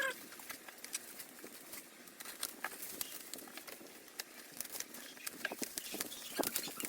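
Parcel packaging being unwrapped by hand: irregular crackles, rustles and small clicks of plastic wrapping and tape.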